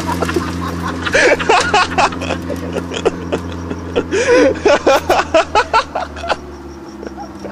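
Toyota MR2's engine running steadily, heard from inside the car, with bursts of laughter about halfway through.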